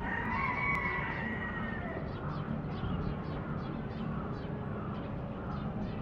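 A rooster crowing: one long call over the first two seconds, followed by a string of short bird calls.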